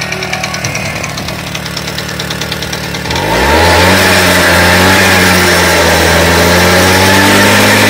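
Tomos A3 Bullet moped's 49 cc two-stroke single-cylinder engine starting about three seconds in: the pitch climbs briefly as it catches, then it settles into a steady idle.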